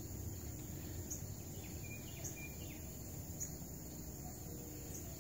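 Woodland ambience: a steady high insect drone with a short high chirp repeating about once a second and a few faint higher-pitched peeps, over a low rumble.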